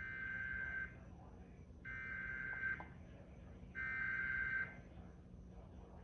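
Emergency Alert System SAME header played from a television: three buzzy digital data bursts of about a second each, a second apart. This coded header opens the alert broadcast for a flash flood warning.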